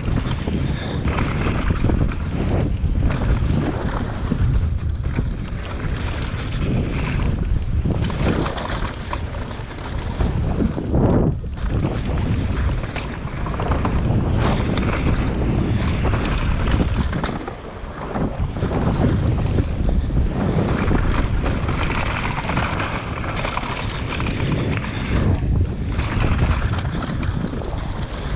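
Wind buffeting a helmet- or bike-mounted action camera's microphone during a fast downhill mountain-bike descent, mixed with tyres rolling over the dirt trail and short knocks and rattles from the bike over bumps. The rush is steady, with a few brief lulls where the speed drops.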